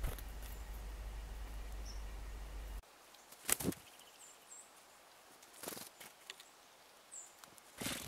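Low steady rumble that cuts off abruptly about three seconds in, followed by quiet outdoor ambience with a few short rustling scrapes, the loudest about half a second later, from a red squirrel scrabbling in scattered seed and shells, and several faint high bird chips.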